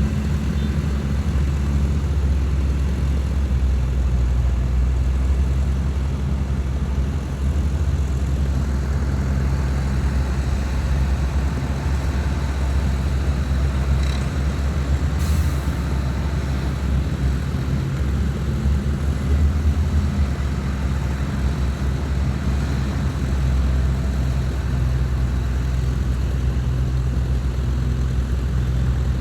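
Heavy diesel engines of earthmoving machines, a bulldozer and dump trucks, running steadily with a low drone.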